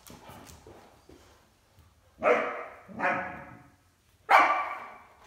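Great Dane barking three times during play, loud single barks a little over a second apart, each trailing off in the room's echo.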